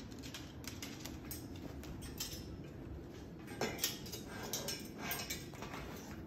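Moluccan cockatoo's beak and claws clicking and tapping on a metal chair frame as it climbs, an irregular run of sharp clicks with the loudest a little past halfway.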